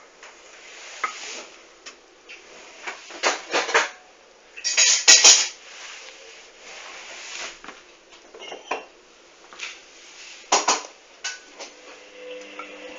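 Hoover washing machine tumbling a duvet during the wash, with irregular swishes and clattering bursts as the drum turns. The loudest burst comes about five seconds in.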